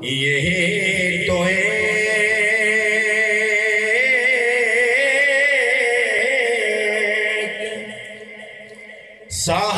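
A man singing an Urdu naat, an unaccompanied devotional song in praise of the Prophet, into a microphone. He holds one long note with a wavering pitch for about seven seconds, lets it fade, and starts the next line just before the end.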